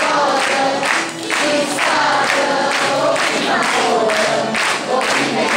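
A man singing a melody with long held notes, accompanied by a mandolin and an acoustic guitar.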